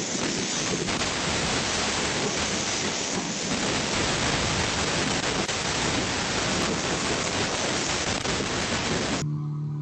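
Tornado wind and rain battering a doorbell camera's microphone: a dense, steady rush of noise that cuts off suddenly near the end.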